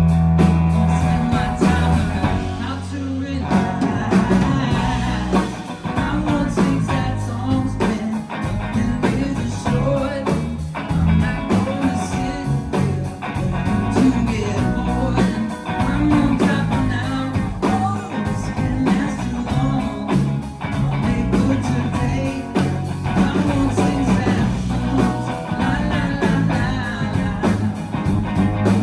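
Live pop-rock band playing a song with guitar, bass and a singing voice.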